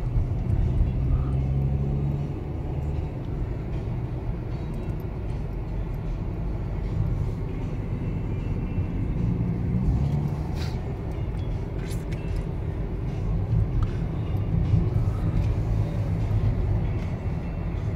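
Road and engine noise inside a moving car's cabin: a steady low rumble, with a few light clicks about ten to twelve seconds in.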